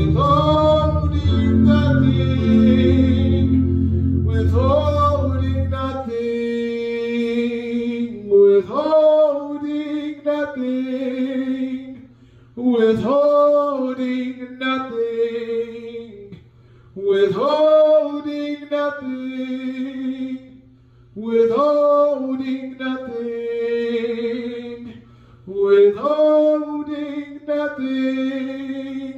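A man singing a gospel worship song, with sustained keyboard chords under his voice for about the first six seconds; after that the keyboard drops out and he sings alone in short phrases with brief pauses between them.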